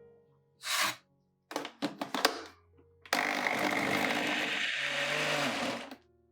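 An electric blender runs steadily for about three seconds, starting about three seconds in, after a few short clatters. Background music plays throughout.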